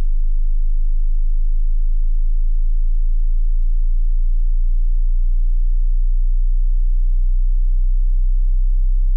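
Loud, steady, very low-pitched pure sine tone from a hearing-test track.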